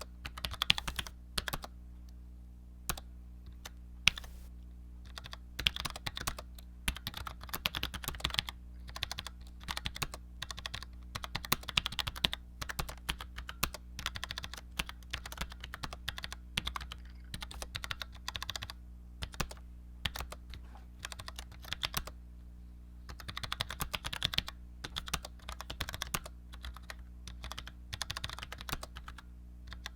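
Typing on a Cherry G84-4100 low-profile keyboard with Cherry ML switches: quick runs of clicking keystrokes broken by short pauses.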